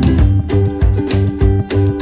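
Background music with a steady beat, led by a plucked guitar over a bass line.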